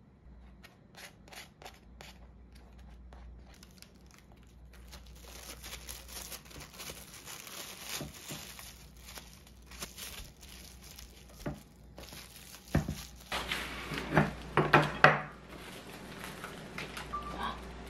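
Baking paper and plastic cling wrap crinkling and rustling as sandwiches are wrapped by hand. The crinkling is loudest in a quick burst about three-quarters of the way through.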